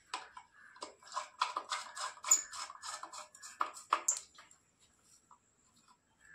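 Hands working a wire connection inside a submersible pump starter panel: a quick run of small clicks and scrapes, about three or four a second, that stops about four seconds in.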